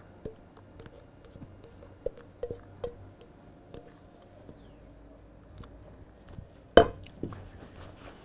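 Soft, quiet scraping and plopping of a thick egg-yolk mixture being poured and scraped with a spatula from one stainless steel bowl into another, with light taps. Nearly seven seconds in, a single louder knock, as of the steel bowl being set down.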